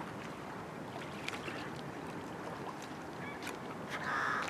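A fishing reel winding in a hooked small conger eel, with faint scattered clicks over a steady outdoor hiss. Near the end there is a short, honk-like call.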